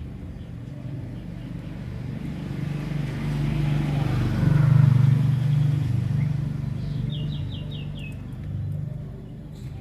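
A motor vehicle passing by, its low engine hum swelling to a peak about halfway through and then fading. Near the end a bird gives a quick run of about five short, high chirps.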